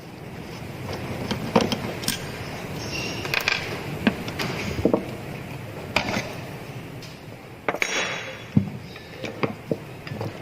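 Irregular clicks, taps and short scrapes of metal and plastic parts being handled while an angle grinder is taken apart by hand.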